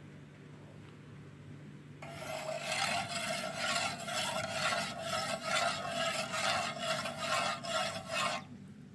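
A spoon stirring water in an aluminium pot, scraping round the bottom with a rhythmic rasp about twice a second to dissolve the granules just added. It starts about two seconds in and stops shortly before the end.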